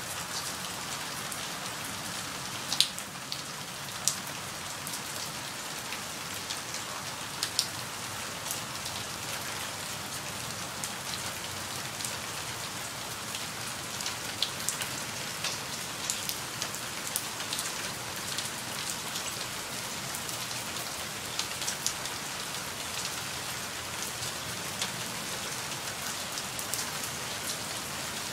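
Steady light to medium rain falling, an even hiss with scattered louder drops ticking close by, a few of them standing out.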